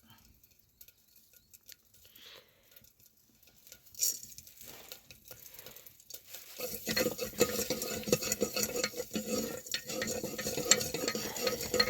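Food sizzling in hot oil in a pan, starting suddenly about two-thirds of the way in and crackling densely from then on, after a single clatter of a utensil or pot about four seconds in.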